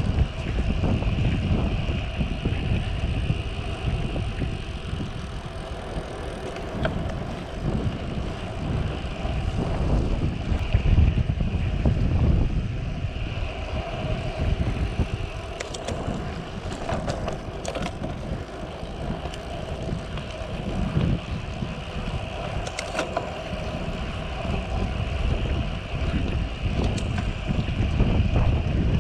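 Wind buffeting the microphone on a moving road bike, a gusting rumble that rises and falls over a steady rushing hiss of riding along a paved street. A few light clicks come in the second half.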